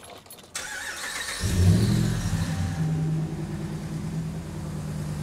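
2012 Ram 1500 engine being started: the starter cranks for about a second, the engine catches and revs up briefly, then settles into a steady idle.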